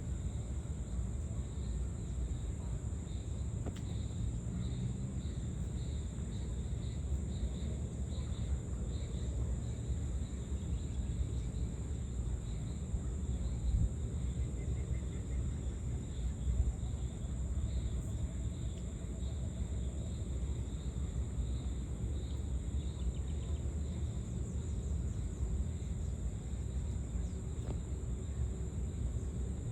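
Dusk ambience of insects: a steady high-pitched drone, joined in the first ten seconds or so by a chirp repeated about twice a second, over a constant low rumble.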